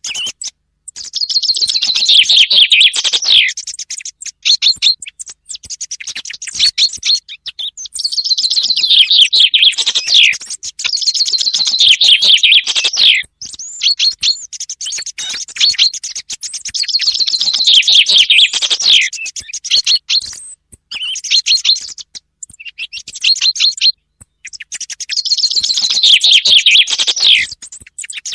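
Recorded common chaffinch song played as a hunting lure: five loud, fast trills, each about two and a half seconds long and falling in pitch to a closing flourish. Fainter short high phrases of the song thrush, mixed into the track, fill the gaps between them.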